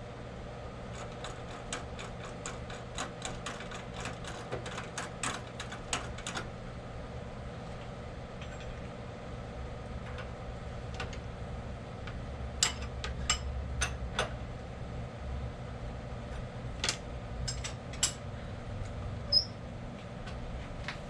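Light metal clicks and taps from tooling being handled and adjusted on a milling machine: a quick run of small clicks, about three or four a second, over the first few seconds, then a few sharper clicks later on, over a steady low hum.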